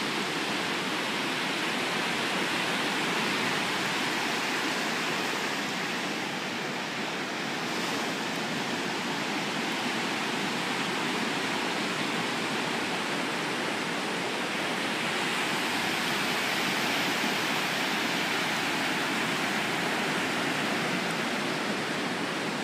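Pacific Ocean surf washing onto a sandy beach: a steady rushing noise that swells and eases a little.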